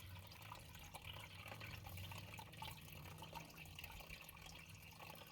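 Near silence: faint room tone with a low steady hum and a few faint small ticks.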